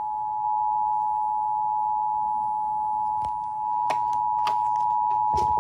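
Emergency Alert System attention signal: a loud, steady two-note tone held throughout, which signals that an emergency alert broadcast is about to follow. A few brief clicks sound over it in the second half.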